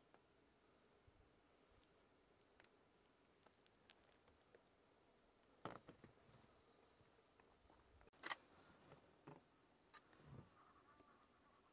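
Near silence with a faint, steady, high-pitched insect drone, and a few faint clicks and knocks, the sharpest about eight seconds in.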